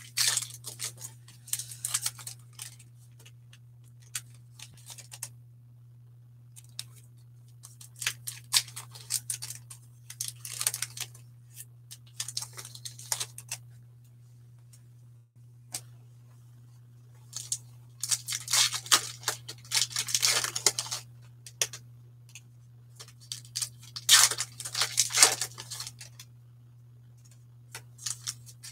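Foil wrappers of Bowman 1st Edition baseball card packs being torn open and crinkled by hand, in about five bursts of rustling with pauses between. A steady low hum runs underneath.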